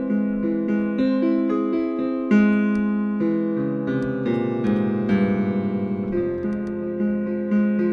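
Solo piano playing a slow, melancholy air in F minor, each note ringing on under the next.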